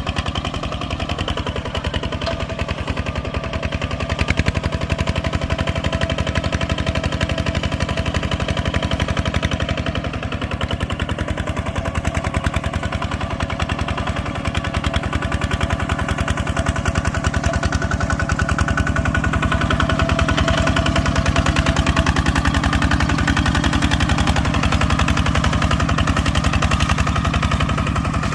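Engine of a rice-harvesting farm machine running steadily with a fast, even beat, getting a little louder in the second half.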